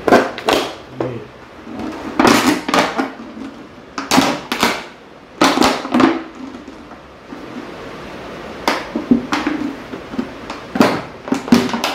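Empty plastic mineral-water bottles crackling and crinkling as they are squeezed and handled. A series of sharp, irregular crackles, with a quieter stretch partway through.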